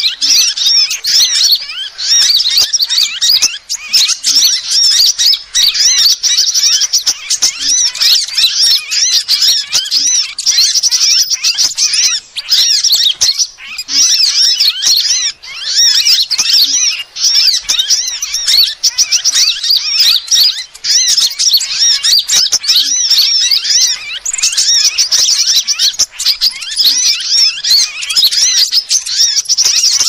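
Bird-lure (pikat) recording of sunbirds calling: a loud, continuous chatter of rapid, high-pitched twittering notes, overlapping without pause.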